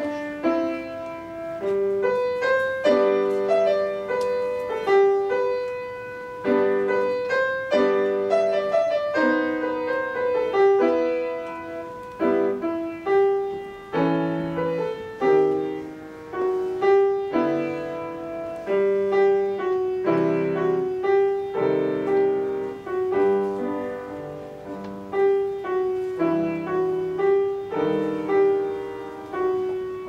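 Grand piano played solo: a classical piece in a continuous flow of struck notes and chords, each ringing on after it is struck.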